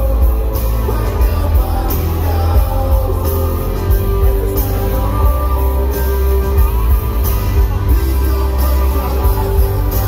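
Live rock band playing through a concert PA, with electric guitars, drums, keyboards and heavy bass under a steady beat, and singing.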